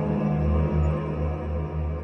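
Scary horror soundtrack music: a deep, pulsing low drone with sustained eerie tones above it, slowly fading.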